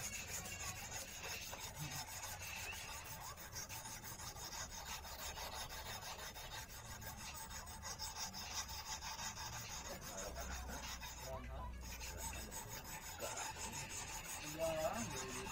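Thin metal hook wire rubbed rapidly back and forth on fine No. 200 abrasive, a steady scratchy rasp of quick short strokes that breaks off briefly about three-quarters through. It is the final polishing stage, meant to bring the wire to a shine.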